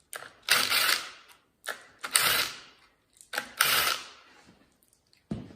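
A ratchet wrench clicking in four short spells as it backs bolts out of the plate on a Turbo 350 automatic transmission's valve body. A dull knock comes near the end.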